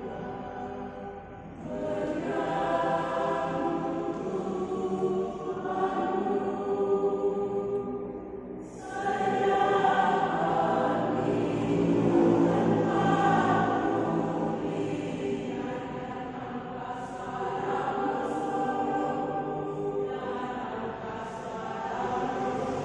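A choir singing sustained harmonies in long phrases, with short breaks about one and a half seconds and eight and a half seconds in; it swells louder after the second break.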